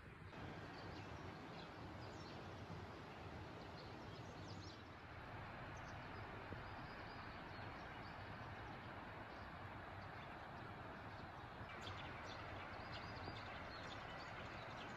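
Faint outdoor ambience: a steady soft hiss with scattered short bird chirps.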